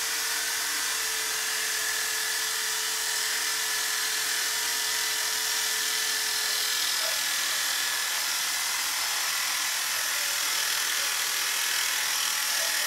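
Electric drill running at steady speed, spinning a small cutting disc mounted on a bolt in its chuck as it cuts through laminated particleboard: an even, high, hissing grind without pauses.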